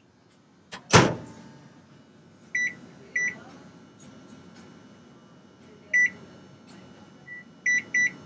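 Microwave oven door shut with a loud knock, followed by short high electronic beeps from its keypad: three single beeps, then a faint one and a quick pair of beeps near the end.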